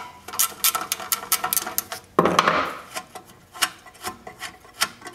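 Socket ratchet clicking in quick strokes as a 3/8-inch bolt is backed out of the carburetor and fuel-tank mount on a Briggs & Stratton small engine, with a brief louder rasp about two seconds in. After it the clicks slow to a few a second.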